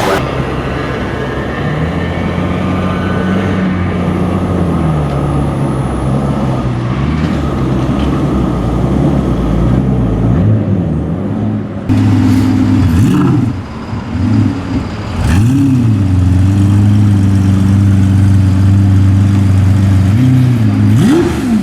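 Car engine accelerating hard through the gears. Its pitch climbs, drops at each shift and climbs again, and it gets louder about halfway through.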